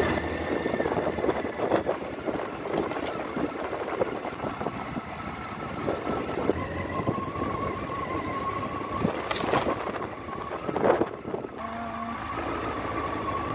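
Motorcycle engine running at low speed on a rough dirt track, with knocks and rattles from the bike going over bumps, the loudest a little past halfway. A steady high whine comes in about halfway through.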